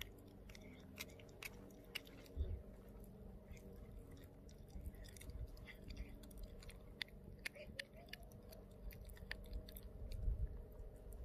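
Small dog chewing a raw duck foot: irregular wet crunches and clicks of teeth on the small bones, with a couple of low thumps.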